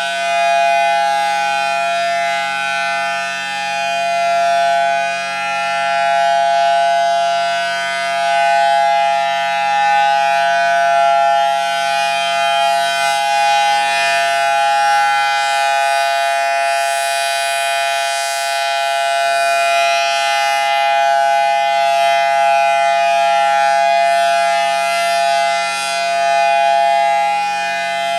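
Federal Signal Thunderbolt 1003A outdoor warning siren sounding a steady alert tone: a held chord of two notes that neither rises nor falls in pitch, its loudness swelling and easing gently every few seconds as the rotating siren head turns.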